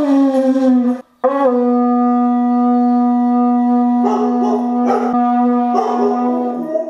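Conch shell horn blown in two blasts: a short note sagging slightly in pitch that ends about a second in, then after a brief break one long steady note held for over five seconds. From about four seconds in, a Siberian husky howls along over the horn.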